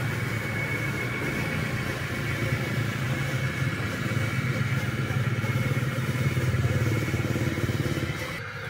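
Radio-controlled Hino dump truck model driving along, its drive running with a steady low hum that drops away near the end as it moves off.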